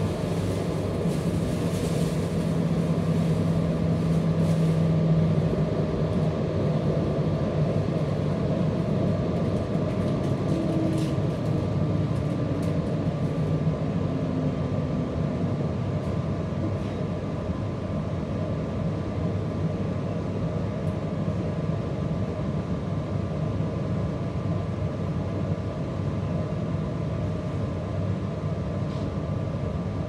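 Running noise of a JR Hokkaido 721 series electric multiple unit heard from inside the passenger car: a steady rumble of wheels on rail with a low hum, easing slightly in loudness as the train slows for the next station.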